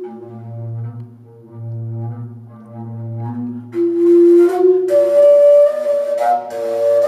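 Flute playing slow, long-held notes over a low steady drone; the drone fades out after about three and a half seconds and the flute gets louder from about four seconds in.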